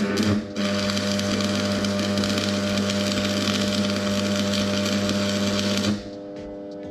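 Electric arc welding: the arc strikes with a brief sputter, drops out for a moment, then catches and burns steadily with a crackling hiss over a low electrical hum for about five and a half seconds before cutting off abruptly.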